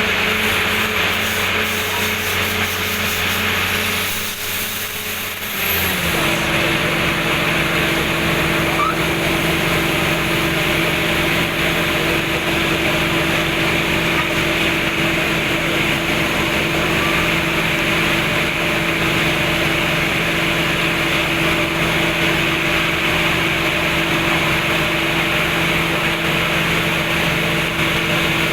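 Borewell drilling rig's engine running steadily under load, with a fast low throb. About five seconds in the sound briefly dips, then settles into a new steady engine drone.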